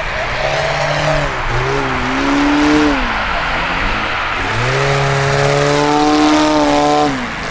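Valach 280 B4 petrol engine of a 50% scale Piper Clipped Wing Cub RC model in aerobatic flight, its note rising and falling with the throttle. The power comes down briefly about a second and a half in and again around the middle, then holds high for a few seconds and drops near the end.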